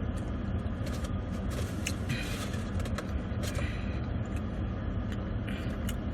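Steady low rumble of a motor vehicle, with a few faint rustles and small clicks on top.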